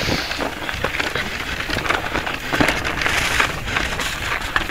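Electric mountain bike riding fast down a snow-covered trail: tyres crunching through the snow, with a rapid run of knocks and rattles from the bike over roots and rocks.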